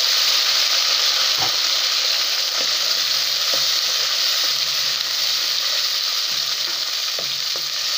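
Chopped tomatoes sizzling hard in hot oil and fried onions just after going into the pot. A wooden spoon stirs them, knocking faintly against the metal pot a few times.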